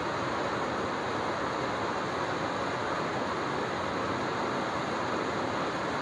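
A waterfall cascading over rocks: a steady, unchanging rush of falling water.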